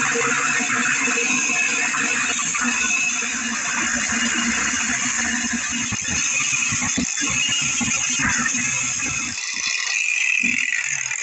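Cordless angle grinder with its disc cutting through a steel rail, a steady loud grinding screech of abrasive disc on metal.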